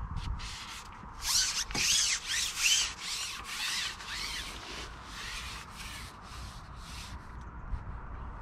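A bird giving a run of about a dozen harsh calls, roughly two a second, loudest in the first half and fading toward the end.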